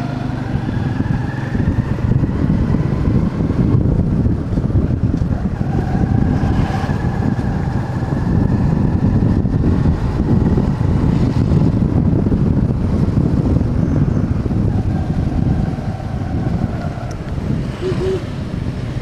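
Motorcycle under way: heavy wind rush over the microphone mixed with the engine, whose note rises a couple of times as it speeds up.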